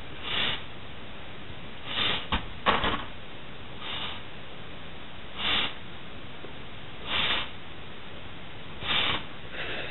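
Breath forced through the nose into a stretched latex glove, in short hissing puffs about every second and a half as the glove is inflated very large.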